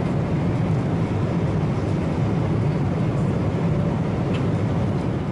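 Steady in-flight cabin noise of a Boeing 777-300ER: an even rumble and rush of engines and airflow, heaviest in the low range.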